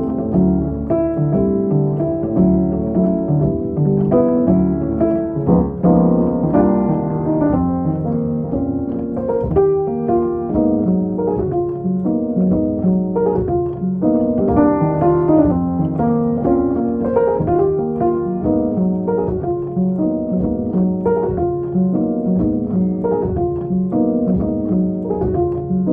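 Piano music: chords and a moving melody line played throughout, with no voice.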